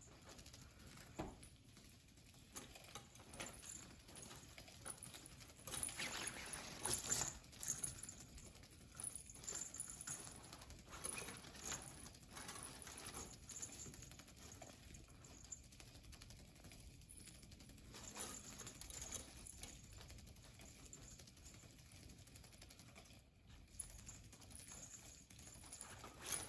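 Faint irregular scratching, rustling and light clicks of cats pawing at a motorized cat toy under its fabric mat, busiest about six to eight seconds in.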